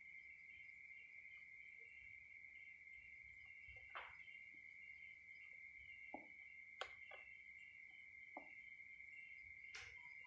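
Steady high-pitched cricket trill, faint, with a few short sharp clicks and taps from soldering work on a circuit board.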